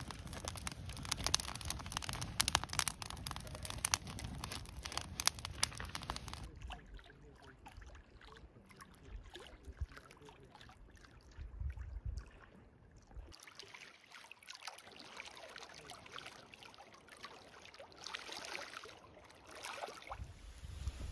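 Kindling crackling and snapping as it burns in a small metal twig stove, with dense sharp snaps for about the first six seconds. Later comes a quieter, steady wash of lake water lapping at the shore.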